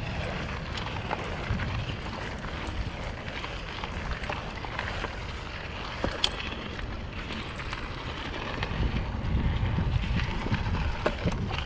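Hardtail mountain bike ridden along a trail: rumbling tyre noise with scattered clicks and rattles, and wind on the microphone, growing louder near the end.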